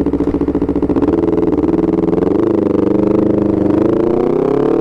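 Honda CBR250RR motorcycle engine running through an aftermarket R9 GP racing exhaust at moderate revs, as heard from the rider's position. The note stays mostly steady, with a brief rise in pitch about halfway through and a slow climb near the end.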